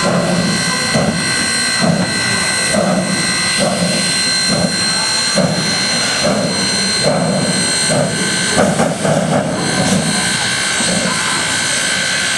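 1913 0-4-0 steam locomotive No. 30 hissing steam, with a steady high whine and a slow rhythmic pulse about once a second underneath.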